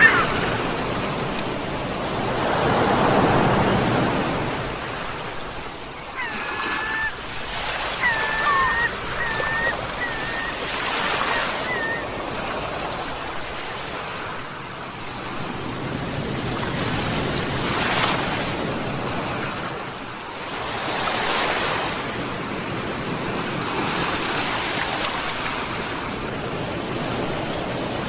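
Ocean waves breaking and washing on the shore, surging and ebbing every few seconds. A gull calls several times in short sharp cries partway through.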